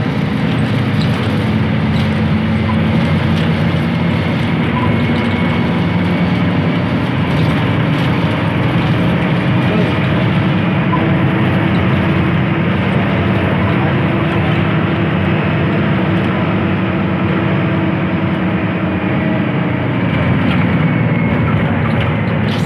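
Intercity bus on the move: a steady engine drone with road and wind noise, its pitch drifting slightly as engine speed changes.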